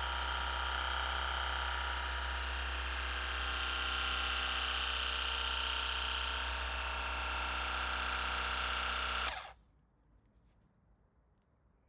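Parkside 20V cordless pressure washer's electric motor and pump running steadily with a whine, then cutting off suddenly about nine and a half seconds in.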